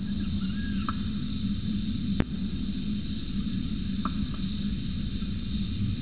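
Steady, high-pitched drone of a cicada chorus, with a low steady hum beneath it and a single sharp click about two seconds in.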